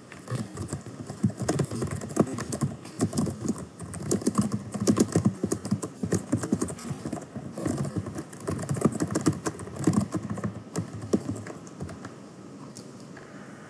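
Typing on a computer keyboard: quick, irregular key clicks that stop about two seconds before the end.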